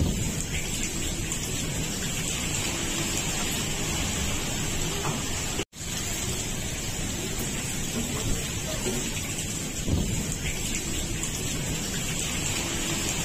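Heavy rain falling in a steady hiss, with wind. The sound breaks off for an instant about halfway through.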